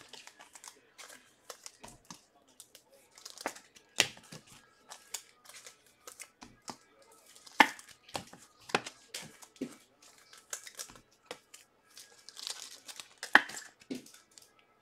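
Trading cards and their plastic pack wrappers being handled: irregular crinkling, rustling and sharp flicks and snaps of card stock, with a few louder snaps.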